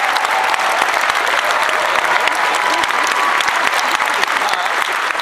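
Large audience applauding steadily, dense clapping with a few voices calling out over it.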